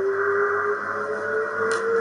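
LG washing machine spinning up: the motor's whine rises steadily in pitch over a steady hum as the drum gathers speed, with one short click near the end.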